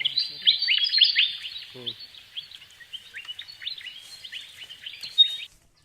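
A flock of small birds chirping and chattering together, a dense run of quick downward-sliding notes that cuts off suddenly near the end. A short low voice-like call sounds briefly about two seconds in.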